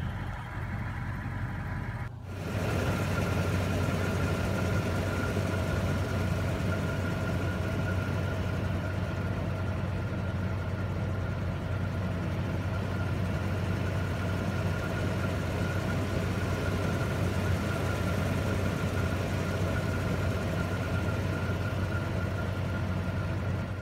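A Toyota Tundra pickup's engine running steadily: a constant low hum with a faint steady whine above it. The sound dips briefly about two seconds in, then carries on a little louder.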